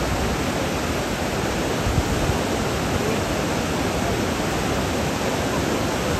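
Steady rush of white water pouring through a river weir and churning in the standing wave below it.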